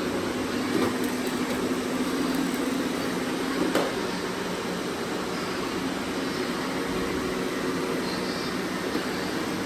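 Robot vacuum cleaners running: a steady whir of suction fans and brushes, with one sharp click about four seconds in.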